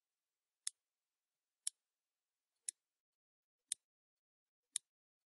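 Countdown timer ticking: five short, sharp, high-pitched ticks, one a second, a clock-tick sound effect counting down the last seconds.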